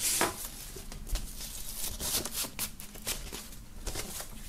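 Paper and cardboard rustling and sliding as a vinyl LP in its printed paper inner sleeve is pushed back into the cardboard album jacket, with a few soft brushing strokes.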